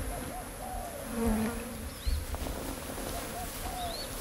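Flies buzzing, their pitch bending as they fly about, with a few faint short high chirps.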